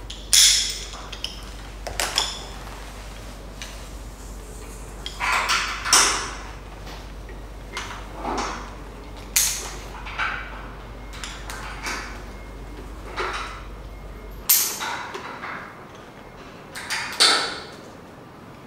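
Steel carabiners and rope-access hardware clinking and clicking as the lanyards are unclipped from the overhead anchors, about nine sharp metallic clicks spread over the stretch, some with a short rustle of rope and harness.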